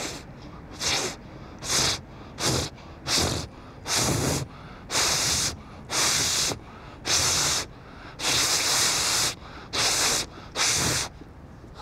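A man breathing hard and loudly through his mouth and nose, about a dozen forceful noisy breaths at roughly one a second, some drawn out longer near the middle.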